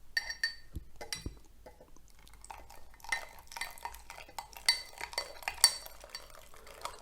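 A spoon stirring hot milk into a raw-egg mixture in a cup, clinking against the sides: brisk stirring to keep the egg from curdling. The clinks are sparse at first and come thick and fast from about halfway through.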